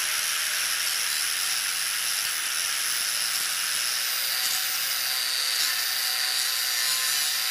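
Steady high hiss of a spinning sanding disc abrading a workpiece, running at an even pitch and level throughout.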